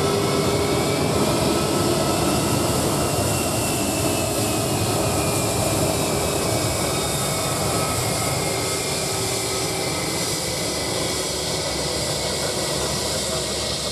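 Airbus A321-231's twin IAE V2500 turbofans at taxi power: a steady jet whine and rush as the airliner rolls past and away. A high tone rises over the first few seconds, then slides slowly down, and the sound eases a little toward the end.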